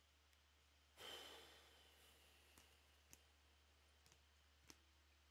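Near silence over a low steady hum, with a brief soft sigh about a second in, then a few faint clicks as trading cards are handled.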